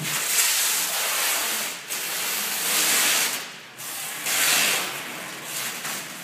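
Clear protective plastic film being peeled off the face of a large mounted photographic print, in a run of about five noisy, hissing pulls, each about a second long.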